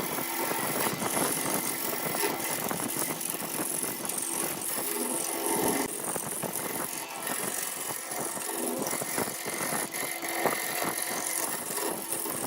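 Wood lathe running with a turning tool cutting the spinning wood: a steady, rattling scrape full of fine clicks.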